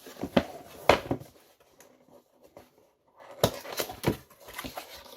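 Handling noise from the charger's retail box and packaging: a few sharp knocks and clicks, about half a second and a second in, then a quick cluster of them near the end.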